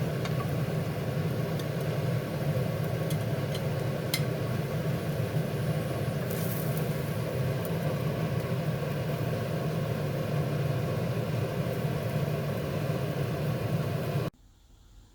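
Steady low mechanical hum with a few faint clicks, cutting off suddenly near the end.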